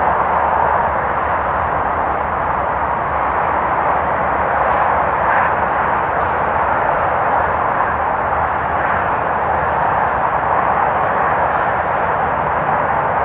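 Distant freeway traffic: a steady wash of tyre and engine noise from many passing vehicles, without individual cars standing out.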